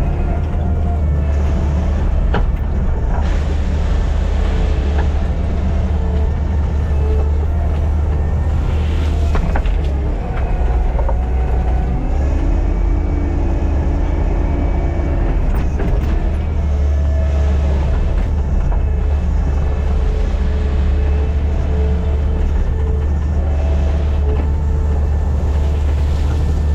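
Diesel engine of earthmoving equipment running steadily under load, a constant low drone with changing whining tones above it.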